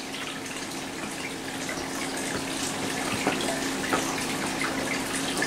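Steady hiss of rain heard from indoors, with a faint low hum under it and a few light taps.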